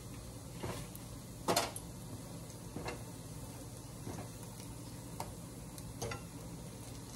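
Slices of luncheon loaf frying in a pan: a soft steady sizzle, with about six scattered clicks and taps of a utensil against the pan, the loudest about one and a half seconds in.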